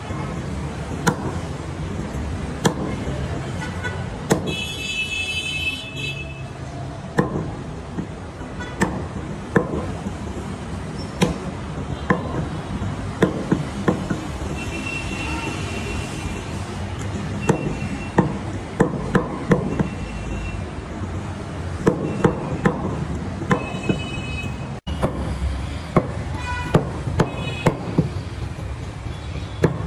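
Cleaver chopping goat meat on a round wooden chopping block: sharp, irregular knocks about once a second, sometimes in quick runs.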